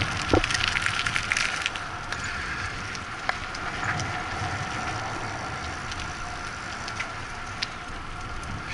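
Bicycle tyres rolling over loose gravel, crackling and crunching for the first couple of seconds, then a smoother steady rolling sound on concrete pavement with a few single clicks as the wheels cross joints.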